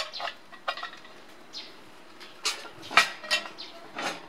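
Cast-iron Dutch oven lid being set onto the pot with a metal lid lifter: a series of metal clinks and clanks, some briefly ringing, loudest about three seconds in.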